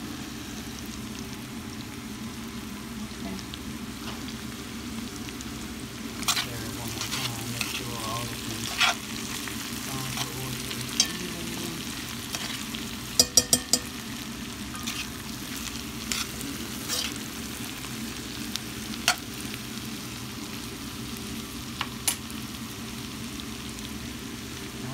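Potatoes and onion slices frying in hot coconut oil in a pan, a steady sizzle. Sharp clicks come every few seconds, with a quick run of four about halfway through.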